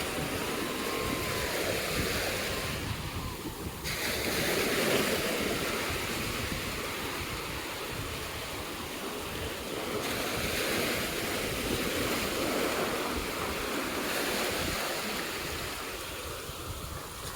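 Sea surf breaking and washing up the beach, swelling twice and easing off, with wind buffeting the microphone.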